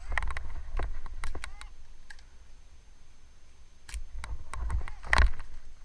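Scattered sharp clicks and knocks at irregular intervals, the loudest about five seconds in, over a steady low rumble.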